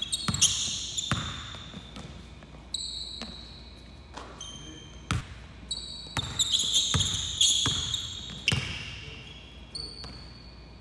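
Basketball dribbled hard on a hardwood gym floor, the bounces echoing in the hall, with sneakers squeaking in short high chirps as the players cut and slide. The squeaking is busiest about half a second in and again in the second half.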